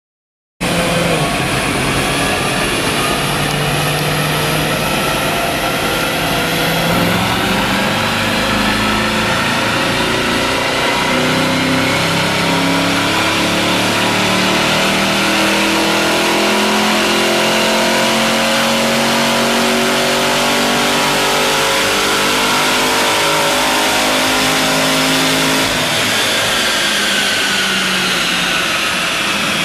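2014 Chevy SS's 6.2-litre LS3 V8, supercharged by a Heartbeat TVS2300 blower and breathing through the factory manifolds and exhaust, run hard on a chassis dyno: a loud, steady engine note whose pitch climbs slowly over a long pull. It cuts in abruptly about half a second in and changes near the end.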